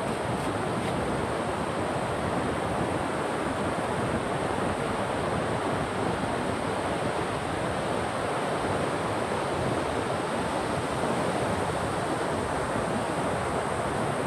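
Steady rush of flowing river water, with a thin steady high tone above it.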